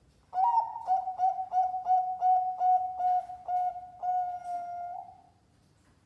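Zebra dove (perkutut) cooing: a run of about ten short, clipped coos at one steady pitch, roughly three a second, ending on a longer drawn-out coo that fades out.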